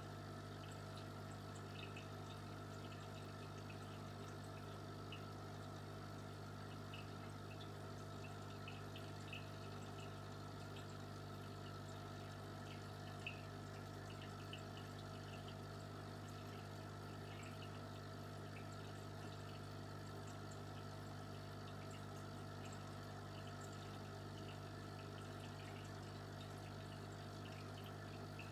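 Aquarium pump running: a steady low hum with faint water trickling and tiny bubbling ticks.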